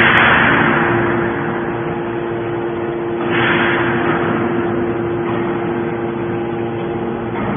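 Mini hydraulic can baler running, its pump motor holding a steady hum. Two louder rushes of noise come at the start and again about three seconds in, each fading over about a second.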